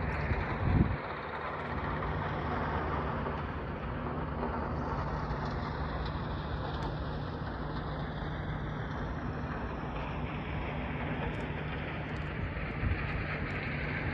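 Steady rushing outdoor noise with a low, even drone underneath, and one brief low thump about a second in.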